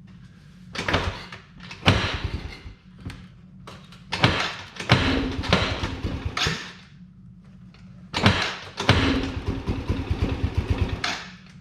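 Starter cranking the engine of a water-logged Can-Am in four bursts, the last two longest, the engine chugging and sputtering on sprayed ether without catching.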